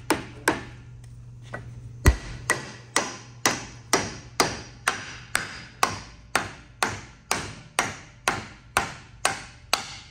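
Hammer blows driving a steel steering arm down over alignment dowels onto a solid-axle steering knuckle, each strike ringing briefly. After two early blows there is a pause of about a second and a half, then a heavier blow starts a steady run of about two strikes a second as the arm is seated.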